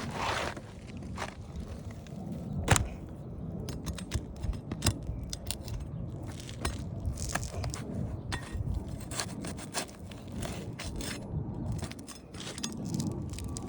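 Asphalt shingle being worked loose from a roof: scraping with many sharp clicks and snaps, the loudest crack about three seconds in.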